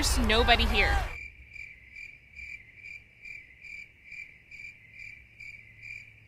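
After about a second of music and voice that cuts off, a cricket chirping sound effect: one faint, high chirp repeating evenly about two and a half times a second, laid in as the gag of silence.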